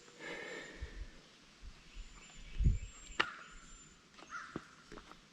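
Faint, very high, thin bird calls repeating several times over quiet woodland ambience, with a few low thumps and one sharp click about three seconds in.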